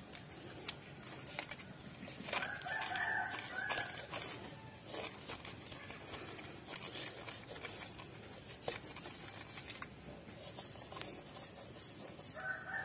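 A rooster crowing twice, about two seconds in and again near the end, the loudest sound. Between the crows, faint rubbing and scraping comes from a petrol-soaked rag being worked inside the engine's intake ports.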